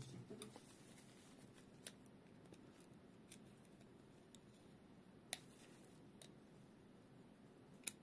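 Near silence broken by a few faint, sharp metal clicks as a thin metal pin is pushed against the brass valve core inside a tripod gas stove adapter's connector.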